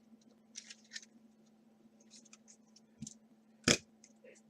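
Trading cards and pack wrappers being handled: soft crackles and small clicks, with a louder click about three-quarters of the way through, over a faint steady hum.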